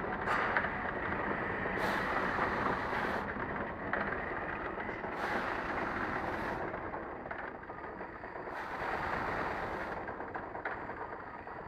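Muller Martini DS 240 three-knife book trimmer running: steady machine noise, with a high hiss that comes in for about a second every three and a half seconds and a few sharp clicks.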